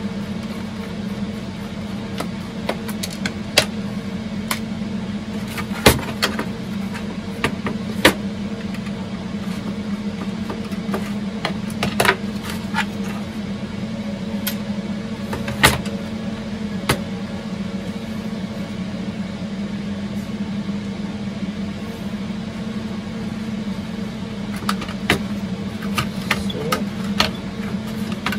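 Steady low hum of computer servers. Over it come scattered sharp clicks and clacks as a small screwdriver works screws in the plastic casing of a weather station display, and tools and casing parts are handled and set down on a wooden bench.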